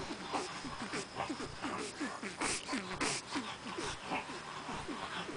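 Three-week-old French bulldog puppy grunting and whimpering in short squeaks that fall in pitch, about three or four a second, with noisy snuffling breaths in between.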